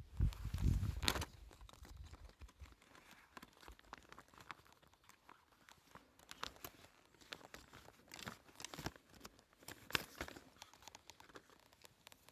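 Close handling noise: a heavy bump on the microphone at the start, then crinkling and rustling with scattered sharp clicks.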